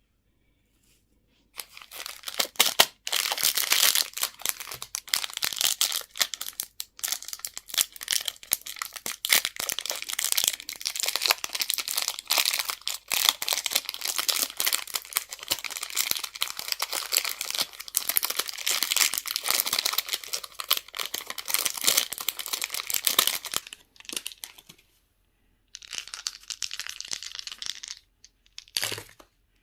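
A candy wrapper being crinkled and torn open, a dense rustling crackle that starts after a second or so of silence. It stops near the end, comes back briefly, then gives way to a single knock.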